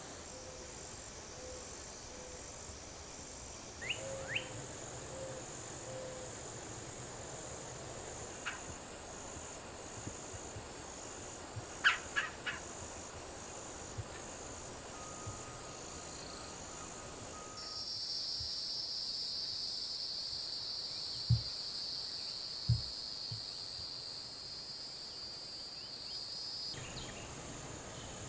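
Insects calling in a steady, pulsing high trill. A little past halfway, a louder, higher-pitched insect buzz takes over, then cuts off suddenly near the end. A few short chirps and two low thumps are scattered through.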